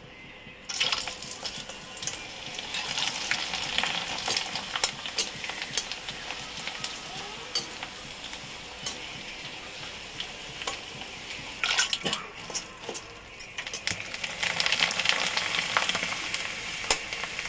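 Dried tube-shaped fryums (nalli) deep-frying in hot oil in a kadhai, sizzling and crackling as they puff up. Short clicks of a spoon against the pan run through it as they are stirred. The sizzle starts about a second in and swells twice more, the last time near the end.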